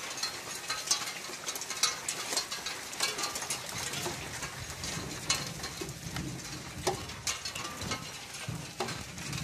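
Rain falling steadily, with many irregular sharp ticks and taps of drops striking hard surfaces. A low rumble comes and goes in the second half.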